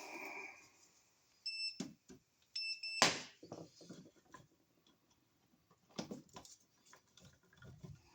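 Two short, high electronic beeps about a second apart, then a sharp click and a few light knocks from handling.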